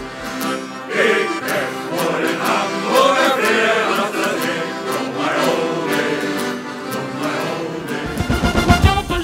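A men's choir singing with accordion accompaniment. About eight seconds in it cuts to a brass band with trumpet over a heavy, regular beat.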